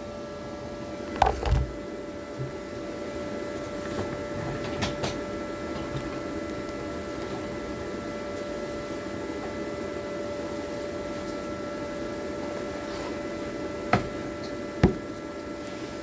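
Toolion MIG-180 Pro inverter welder switched on and idling: a steady hum with a thin, high electrical whine. A few short clicks and knocks from handling come about a second in and twice near the end.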